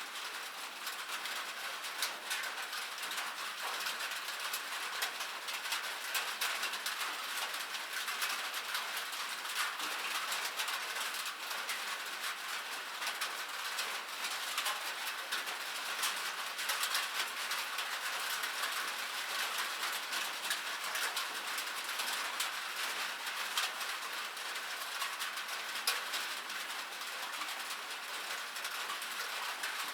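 Steady rain on a metal surface: a dense, even hiss of drops with many small sharp ticks of individual drops striking the metal.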